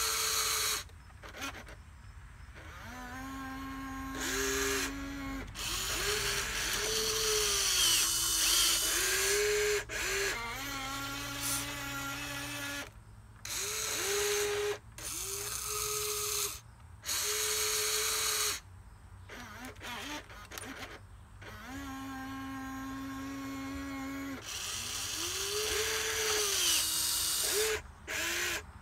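Wltoys 16800 RC excavator's small electric gear motors whining in short stop-start runs as it digs. The pitch steps between a lower and a higher tone, with brief silences between moves.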